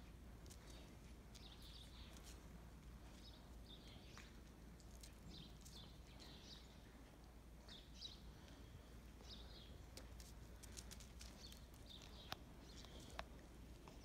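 Faint small birds chirping off and on, in short high calls every second or so, with a few light clicks and rustles.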